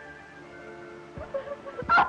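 Old film-score background music of held, steady notes, with a wavering, crying voice breaking in over it in the last half second or so, loudest right at the end.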